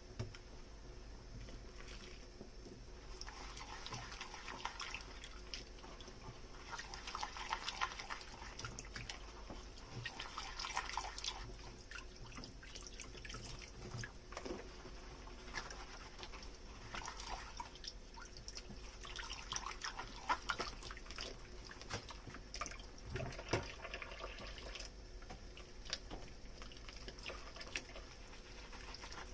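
Dishes being washed by hand with a foamy sponge at a kitchen sink: crackly, squishy scrubbing that comes and goes every few seconds, with water dripping and a few light knocks of crockery.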